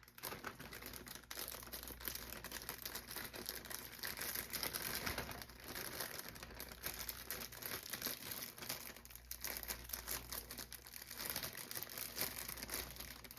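Mushrooms sizzling and crackling in hot olive oil in a frying pan, a steady fine crackle of many small pops.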